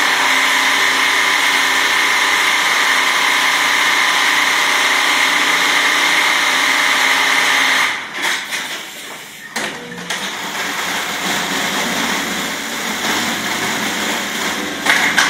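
Brother industrial programmable sewing machine running at full speed through a stitching cycle: a loud, steady running sound that starts and stops abruptly, about eight seconds long. A few knocks follow, then a quieter mechanical running sound.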